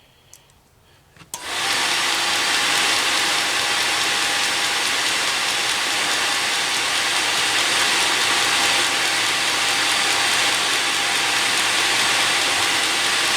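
Eberspacher D1L diesel heater's combustion-air blower starting with a click about a second in, spinning up within half a second and then running steadily, at the start of the heater's start-up run.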